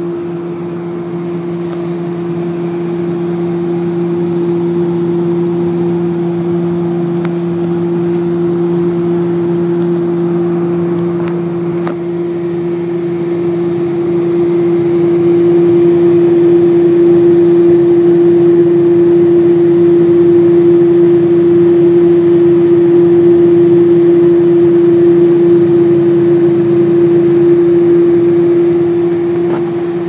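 Ducane gas furnace running with its burners lit: a steady mechanical hum with one strong, constant tone. It gets louder about halfway through.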